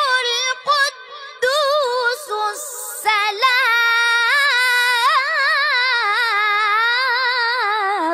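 A qari's high voice chanting Quran recitation in long ornamented runs, the pitch wavering up and down within each held syllable. There are short breaks for breath about half a second, a second and a half and three seconds in, and the phrase ends about eight seconds in.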